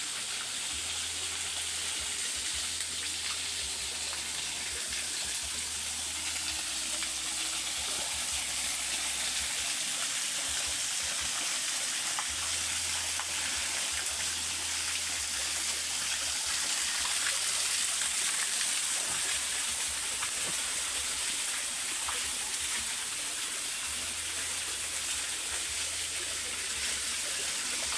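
Rushing water of a waterfall: a steady, even hiss. A low rumble comes and goes underneath it.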